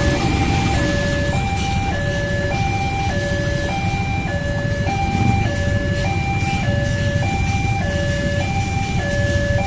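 Railway level-crossing alarm sounding a steady two-tone electronic chime, a high and a low tone alternating about every half second, over the low rumble of a passenger train running through the crossing.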